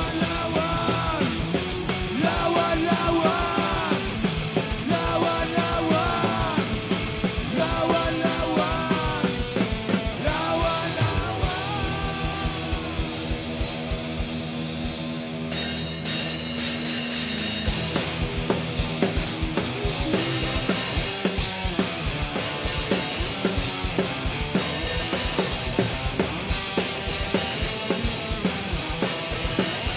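Loud rock band playing an instrumental break: a bending melodic lead line over held chords, then the drum kit comes in hard about halfway through with full-band rock.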